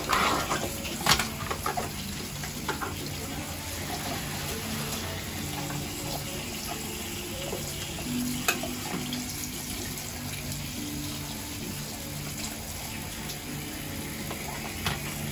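Bathroom tap running steadily into a sink basin, with a couple of sharp knocks about a second in and again near the middle.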